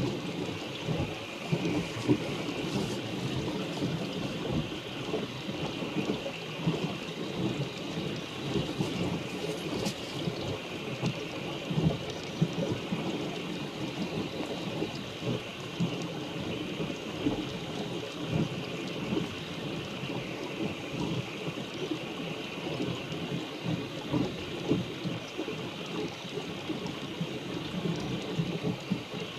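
Wind buffeting the microphone in irregular low rumbles, over a steady hiss of water rushing past a small sailboat's hull while under way.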